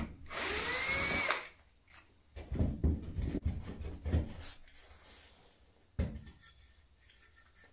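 Ozito cordless drill driver runs for about a second, backing out the screws that hold the hole saw jig to the plasterboard ceiling. It is followed by a few seconds of irregular knocks and scraping as the jig is worked out of the hole, and a single click near the end.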